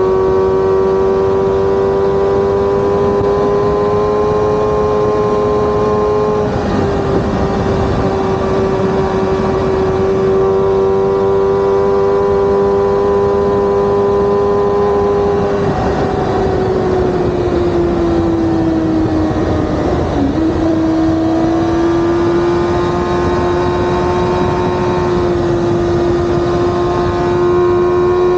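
Sport motorcycle engine running at a steady highway cruise, with a constant rush of wind and road noise. The engine note sags lower a little over halfway through, then levels off again.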